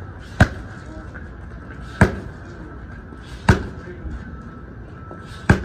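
Muay Thai kicks landing on a held kick shield: four sharp slaps about a second and a half apart, each with a short hiss just before it.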